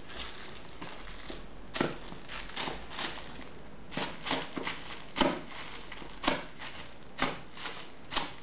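A cat's claws and paws tapping and scrabbling on a tiled floor as it wrestles a plush toy: a dozen or so irregular sharp clicks, the loudest coming about five and six seconds in.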